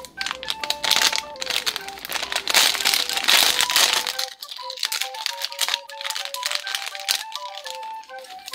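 A plastic blind bag crinkling and tearing as it is ripped open by hand, loudest for the first four seconds, then lighter rustles and clicks as the toy is pulled out. A simple background melody plays throughout.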